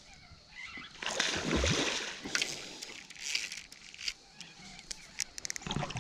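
Water splashing and sloshing in several bursts, with a quick run of sharp clicks near the end.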